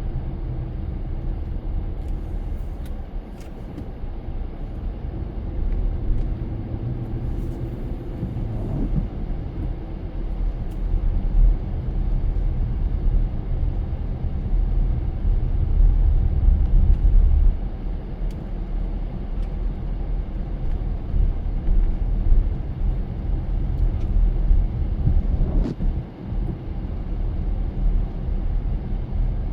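A car driving along, with a steady low rumble of engine and road noise that swells and eases a little, and a few faint ticks.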